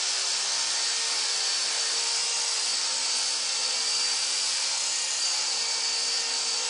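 Esky Honey Bee King V3 electric RC helicopter spun up and held light on its skids, its motor and rotor blades making a steady high-pitched whine and whir.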